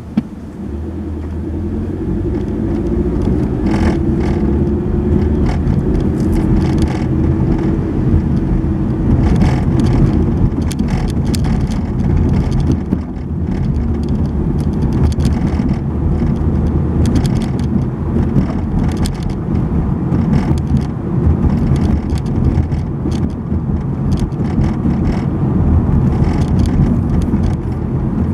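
Car driving on a city road, heard from inside the car. The engine rises in pitch as it pulls away over the first few seconds. After that comes a steady low rumble of engine and road noise, with frequent short knocks and rattles.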